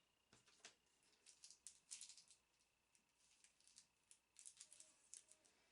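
Faint, scattered clicks and rustles of makeup brushes and their packaging being handled.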